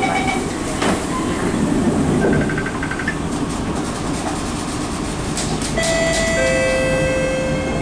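Onboard running noise of two MRT trains, a C151C and a C151A, heard together as they roll slowly along a station platform. Steady rumble with a few clicks early on; about six seconds in, several steady electric whine tones come in.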